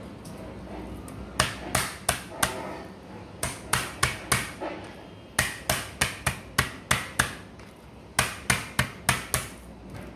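Metal meat tenderizer mallet pounding raw chicken breasts flat on a cutting board: sharp strikes in quick runs of three to six, about three a second, with short pauses between runs.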